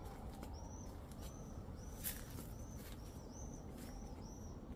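Faint bird calls: a small bird repeats a short, high, arched chirp about every half second. A few soft clicks come in between, the loudest about two seconds in.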